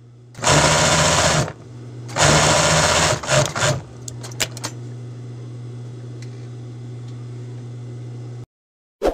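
Industrial sewing machine stitching elastic onto shorts in two runs of about a second each, then a shorter run and a few clicks, with its motor humming steadily between runs. The sound cuts off suddenly near the end, followed by a brief thump.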